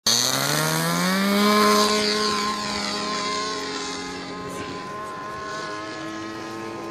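O.S. 46 LA two-stroke glow (nitro) engine on a Multiplex Gemini RC biplane throttling up for takeoff, its pitch rising over the first second or so. It then runs steadily at high power, growing fainter as the plane climbs away.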